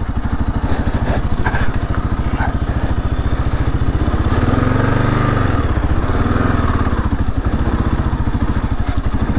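2022 Kawasaki KLR 650's single-cylinder four-stroke engine running at low speed on a trail, with a brief rise in revs about four and a half seconds in that settles back a second or two later.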